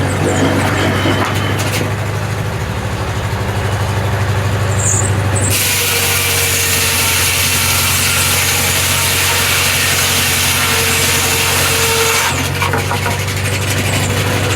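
Corley circular sawmill running under a steady engine hum, its blade cutting through a log for about seven seconds in the middle, a dense hiss that stops near the end.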